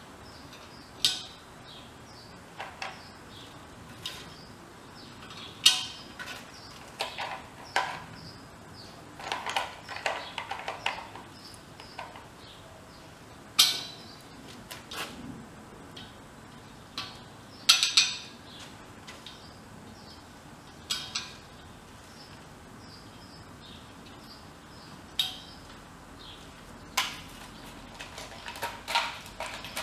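Hand tools and metal parts clinking and clanking against a workbench as they are picked up and set down: scattered separate knocks at an uneven pace, some in quick clusters.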